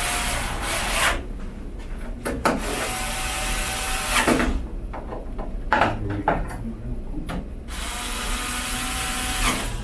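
Electric screwdriver running in three bursts of about two seconds each, a steady motor whine, driving in the retaining screws of an audio console's expansion card. A few small knocks of handling come between the bursts.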